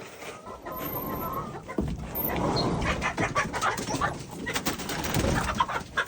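A flock of chickens clucking in their coop, with one faint drawn-out call about half a second in, then irregular scratching and rustling among the birds.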